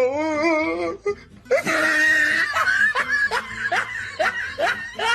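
A person laughing hard: a drawn-out, wavering laugh, then a run of short bursts coming about two or three a second.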